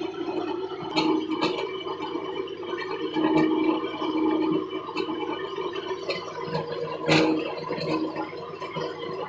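Wood lathe running, with rough scraping as the spinning mahogany workpiece is worked and sharp clicks now and then, the loudest about seven seconds in.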